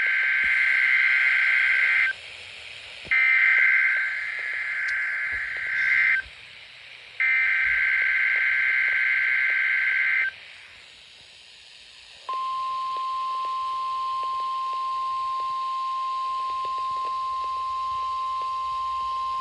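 Emergency Alert System test: the SAME header, three bursts of buzzy digital data tones about three seconds each with short gaps between, followed about two seconds later by a long, steady single-pitch attention tone.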